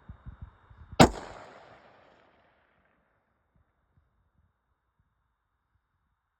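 A single gunshot about a second in: a sharp crack with a ringing tail that dies away over about a second. No tannerite explosion follows, so the shot has missed the target.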